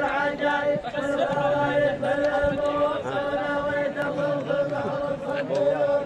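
A chorus of men chanting in unison in long, drawn-out held notes: the group refrain of a dammah, the southern Saudi (Asiri) folk chant sung between the poets' verses.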